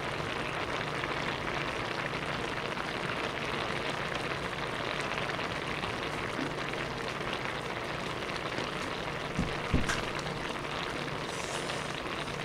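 Tuna kimchi stew bubbling steadily in a hot earthenware pot (ttukbaegi), an even fizzing patter. Two dull knocks a little before the ten-second mark.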